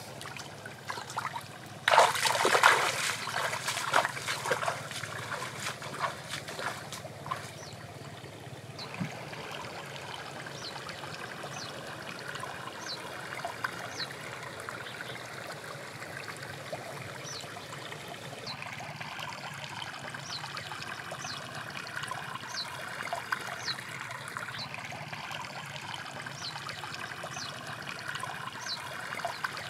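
Shallow stream water running around wooden stakes and a watermelon set as a fish trap: louder splashing for the first several seconds, then a steady trickle.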